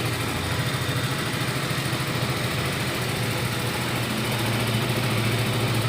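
2022 KTM RC motorcycle's single-cylinder engine idling steadily.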